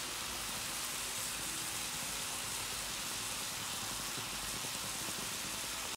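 Shredded zucchini, carrot and onion frying in a pan: a steady sizzling hiss.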